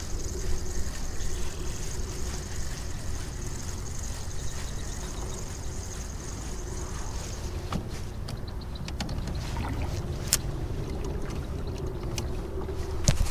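A small fishing boat's motor running steadily while the boat moves, with a thin high whine that stops about seven seconds in. A few sharp clicks and knocks come near the end.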